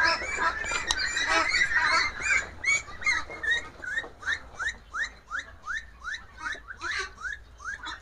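Pekin ducks quacking over one another, then from about three seconds in one duck calling in a steady run of short rising calls, about three a second.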